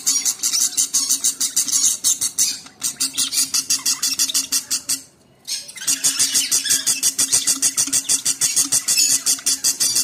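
Budgerigar chicks in the nest begging to be fed: a fast, even run of raspy chirps over a steady low hum, breaking off briefly about five seconds in.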